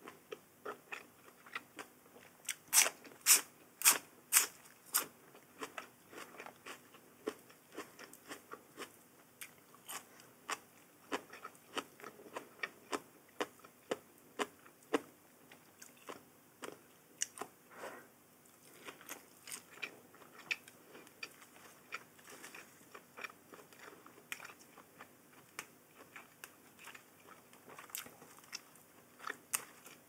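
Close-miked biting and crunching of crisp food: som tam with raw vegetables being chewed. There is a run of about five loud crunches, roughly two a second, starting about three seconds in, then steady softer chewing clicks.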